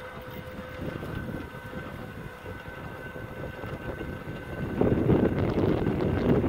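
Heavy-duty 12/24-volt WindyNation electric linear actuator of a dual-axis solar tracker running under manual push-button control, giving a steady motor whine as it tilts the panel array. About five seconds in, loud wind buffeting on the microphone takes over.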